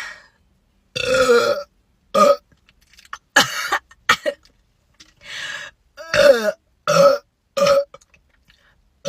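A woman burping again and again: a string of short burps, about one a second, from gas after gulping down a carbonated soft drink.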